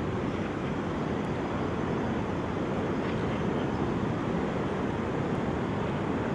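A steady low rumbling noise at an even level, with a few faint short high chirps over it.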